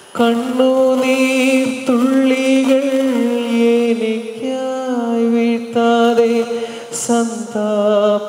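A devotional hymn sung with music, the voice holding long, steady notes with slight wavering; a new phrase starts loudly just after the opening.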